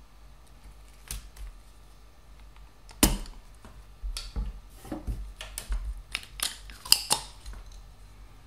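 Small hand tools being handled, picked up and set down on a wooden workbench: a single click about a second in, a sharp knock about three seconds in that is the loudest, then a run of lighter clicks and taps for a few seconds.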